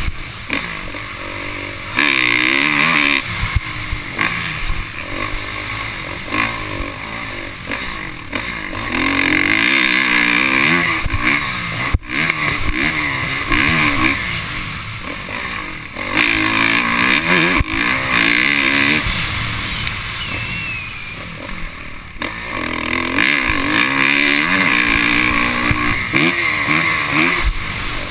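Motocross dirt bike engine, heard from the rider's helmet camera, revving hard and backing off again and again as it is ridden around the track. Its pitch climbs and drops repeatedly, with about four louder full-throttle stretches.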